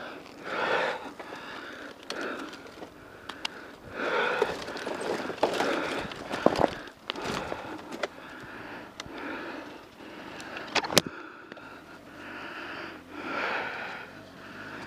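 A person breathing hard close to the microphone, deep breaths every second or two, with scattered clicks and knocks from handling the dirt bike on loose gravel; one sharp click stands out about eleven seconds in.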